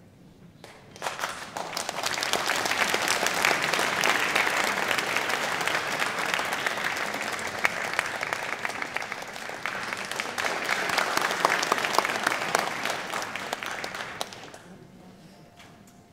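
Concert audience applauding. The clapping starts about a second in, holds steady, and dies away near the end.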